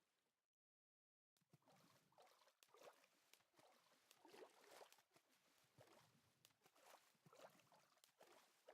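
Near silence. After about a second and a half of dead quiet, a faint crackling noise with scattered small clicks.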